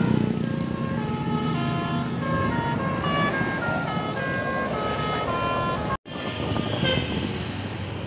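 Basuri musical bus horn playing a tune of short held notes, several pitches at once, stepping up and down over the low rumble of bus and motorbike engines. It breaks off abruptly about six seconds in, then a few more horn notes follow.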